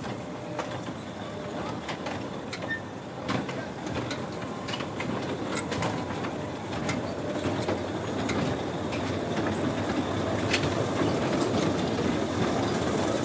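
Small powered jeep-ride cars running along a metal guide-rail track, rattling and clicking as they roll. The sound grows gradually louder as the cars come closer.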